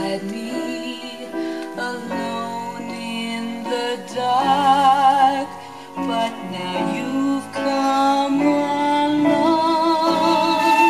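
A vinyl record playing on a Denon DP-23F direct-drive turntable: a song with a singer holding wavering notes in vibrato over instrumental backing.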